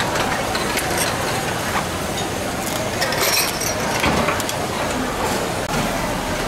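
Knife cutting through cooked king crab shell on a plastic cutting board, giving scattered clicks and cracks over a steady background hum, with a cluster of clicks about three to four seconds in.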